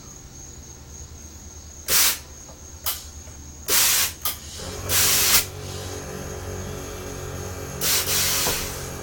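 Several short bursts of compressed air hissing through the air-ride valves as the airbags on a 1998 Chevy Blazer are filled and let out. About halfway through, a steady hum sets in from the onboard air compressors running.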